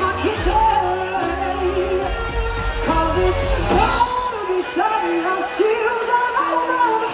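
Live band playing a slow blues, with melody notes that slide and bend up and down. The low bass drops away for the second half.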